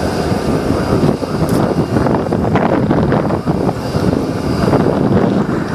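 Steady aircraft engine noise on an airfield apron, with wind buffeting the microphone.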